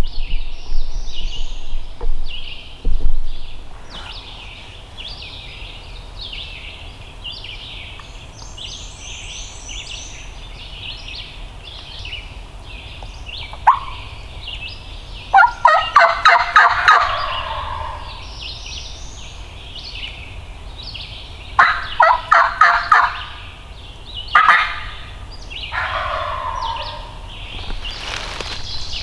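Eastern wild turkey gobbler gobbling three times: a loud, rattling call that falls in pitch, about halfway through and twice more in the last third. Songbirds chirp steadily in the background.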